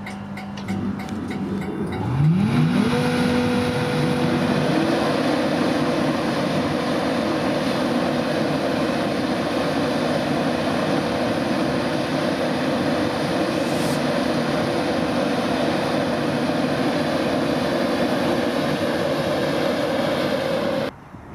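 Virgin Trains East Coast locomotive starting to pull away slowly from a platform: about two seconds in, a whine rises steeply and settles into steady tones over a loud running noise, which cuts off suddenly near the end.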